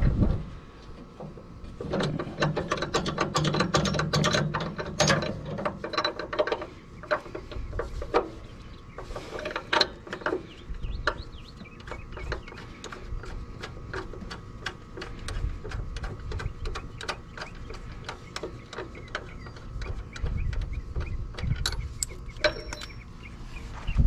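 Irregular metal clicks and clinks of hardware being worked by hand on a tractor's three-point hitch lower link while the old stabilizers are taken off. The clicking is busiest in the first few seconds.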